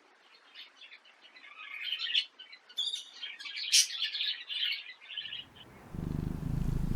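Birds chirping, a quick run of many short high chirps. About five seconds in the chirps stop and a low, pulsing rumble begins.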